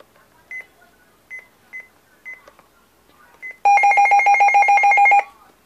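Midland WR300 weather radio: several short key beeps as its buttons are pressed, then its alert siren sounds loudly for about a second and a half as a fast pulsing two-tone alarm, about eight or nine pulses a second, and cuts off, as in a siren test.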